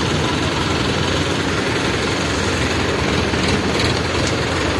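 Large diesel engine of heavy machinery running steadily at a constant speed.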